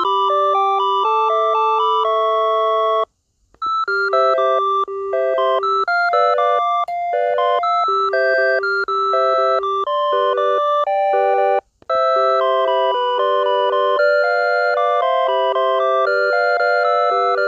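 Mobile phone ringtone melodies played as simple electronic beeping notes. They break off briefly about 3 seconds in and again near 12 seconds, and a new tune starts after each break.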